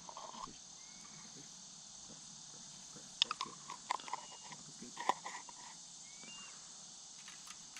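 A duck close by making a cluster of short, soft clicking sounds about three to five seconds in, over a steady high-pitched drone of crickets.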